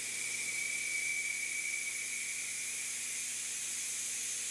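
Compressed air hissing steadily through a tire's open, coreless valve stem, with a faint whistle riding on the hiss.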